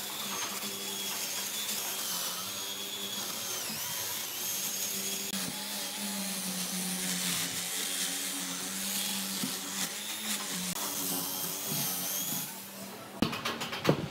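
Electric drill spinning a wire brush wheel against dry tree-stump bark: a steady motor whine that sags in pitch each time the brush is pressed into the wood. About a second before the end the motor stops and sharp knocks and clatter follow as the wooden stump is handled on the bench.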